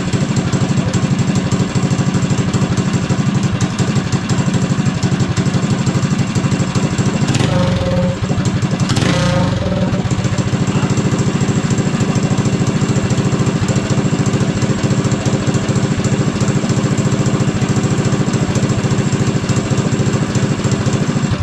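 Go-kart's small four-stroke engine running steadily, with a brief change in pitch as the throttle is blipped about eight to nine seconds in. It shuts off suddenly at the end.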